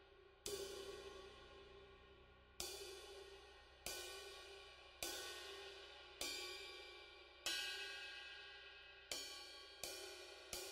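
Sabian HHX Tempest cymbal struck singly with a drumstick about nine times, each hit left to ring and die away before the next, the last few coming quicker.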